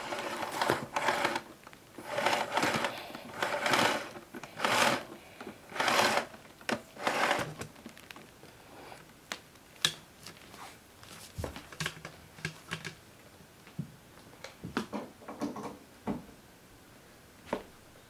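Power cord pulled out of a Miele S6 canister vacuum's cord reel in a series of short rattling tugs over the first seven seconds, then scattered light clicks and knocks. The vacuum's motor is not running.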